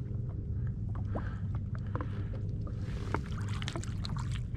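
Light scattered clicks and taps of hands handling a small caught fish and the fishing line while unhooking it, over a steady low hum.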